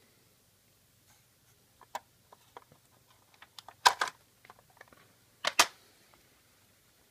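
Handling noise: scattered small clicks and rustles as fingers touch the clip-on test leads and cartridge in an opened home computer, with two louder clattering clusters about four and five and a half seconds in.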